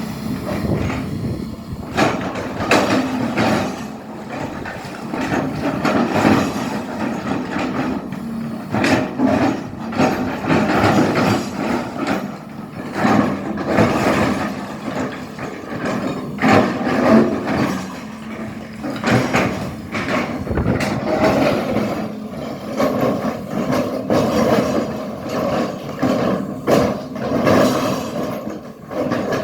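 SANY excavator's diesel engine running and swelling under load as it digs, with repeated short knocks and scrapes throughout.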